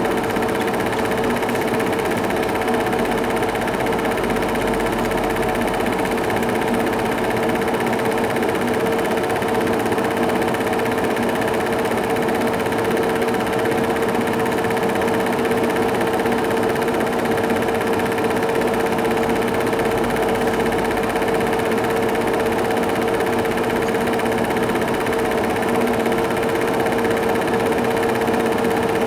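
Film projector running: a steady mechanical whirr with a constant hum.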